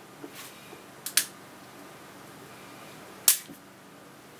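Sharp clicks of a sawn-open motor start capacitor's hard case being handled and pulled apart by hand: a quick pair just over a second in and a single louder click a little past three seconds.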